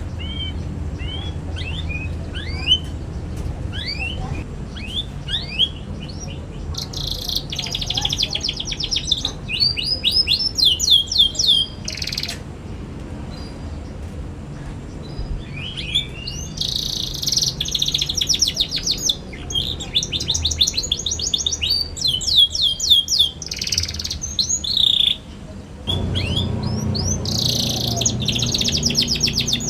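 Young domestic canary singing a chattering twitter: quick rising chirps at first, then bursts of fast, dense trills separated by short pauses.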